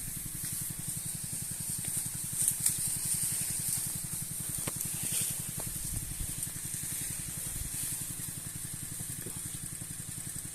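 Weed spray hissing from the nozzle of a long-hose power sprayer, swelling briefly a few times, over the steady fast pulsing of the sprayer's small Sanchin engine running.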